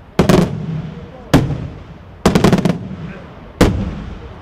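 Daytime fireworks: aerial shells bursting in loud bangs, each trailing off. A quick cluster of bangs comes first, then a single one, then a rapid run of about five, then one more.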